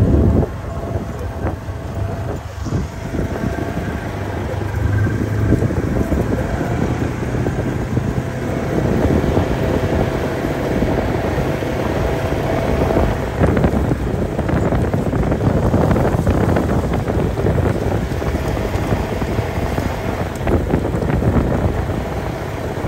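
Utility vehicle's engine running while it drives across rough grass, with wind buffeting the microphone.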